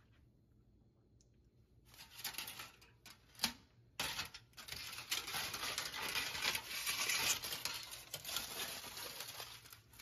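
Rustling, crinkling handling noise that starts about two seconds in, with a sharp click a little after three seconds and a brief break, then goes on crinkling steadily for most of the rest.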